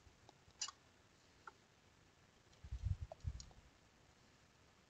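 A few light clicks, then a cluster of soft low knocks about three seconds in, from tools and hands handling a circuit board on a workbench.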